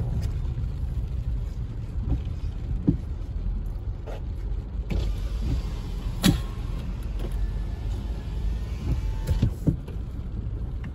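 Car driving slowly on a wet road in the rain, heard from inside the cabin: a steady low rumble of engine and tyres on wet pavement, with scattered ticks and a sharper click about six seconds in as the windshield wiper sweeps.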